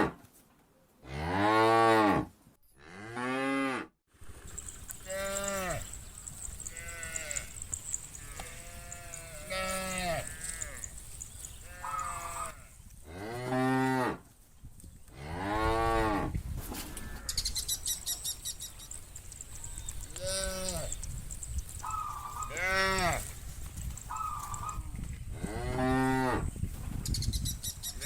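A herd of cattle mooing, one long drawn-out call after another every second or two, some deep and some higher-pitched, with calls from several animals overlapping.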